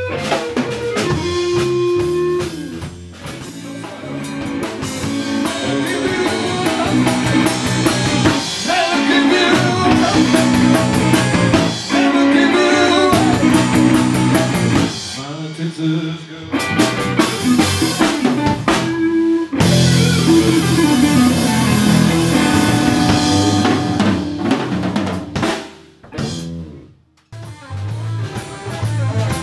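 Live Texas blues-rock band playing: guitar, bass and drum kit with snare, kick and rimshots. The band stops short a few times, the longest break near the end.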